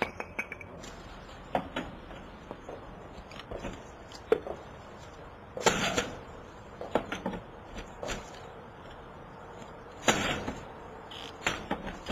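A pry bar jabbed and levered against a window security screen and its frame: irregular metal clanks and scrapes as it tries to force the screen, the loudest strikes about six and ten seconds in.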